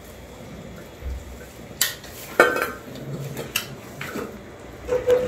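Stainless steel pet food bowls clinking and knocking as kittens eat wet food from them, a few separate clinks, the loudest about two and a half seconds in with a short metallic ring. A brief steady tone sounds near the end.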